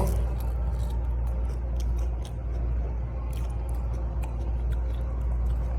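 Close-up chewing of crisp raw salad greens: irregular small crunching clicks, over a steady low hum.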